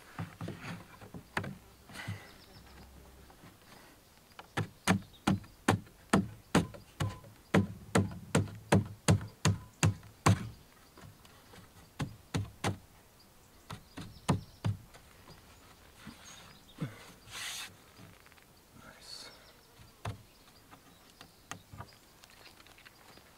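Hammer blows on wood: a steady run of about fifteen sharp strikes, between two and three a second, in the middle, with scattered lighter knocks before and after.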